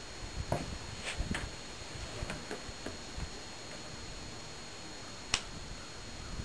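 Faint, scattered small clicks and handling noise over a steady hiss, with one sharp click about five seconds in.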